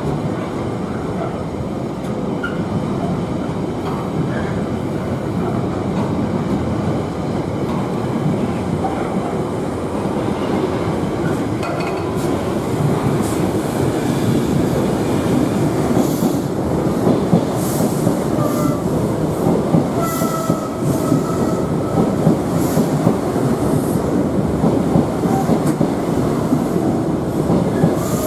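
Trains rolling through a station: the wagons of a container freight train and then a set of Mark 3 intercity passenger coaches pass close by, with a steady rumble of steel wheels on rails. In the second half the wheels click regularly over rail joints, with a short wheel squeal about twenty seconds in.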